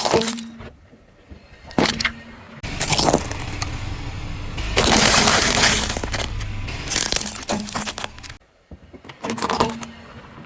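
Brittle objects crunching and cracking as a car tyre rolls over and crushes them, with a few sharp single cracks and a long stretch of dense crackling in the middle.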